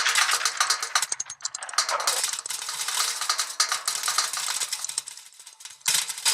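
Clockwork mechanism running, a dense rapid clicking and whirring of gears and escapement that dies down about five seconds in and picks up again just before the end.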